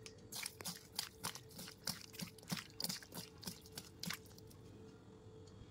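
Raw tengra catfish coated in turmeric and salt being mixed by hand in a stainless steel bowl: a run of wet squelches and clicks, about three a second, stopping a little past four seconds in.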